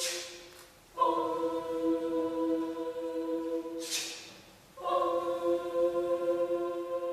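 A choir singing long held chords, each about four seconds, with two short breaks that each begin with a brief hiss.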